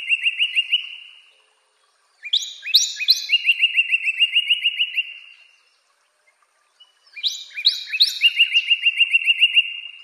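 Northern cardinal singing: the end of one song phrase, then a full phrase about two seconds in, then another starting near the end. Each phrase opens with a few clear whistles slurring downward and runs into a quick series of short repeated notes.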